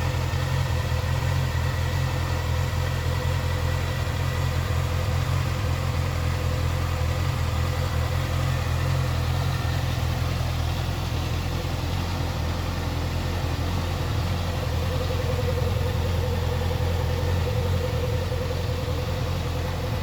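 2016 Honda CBR650F's 649cc inline-four engine idling steadily through its exhaust.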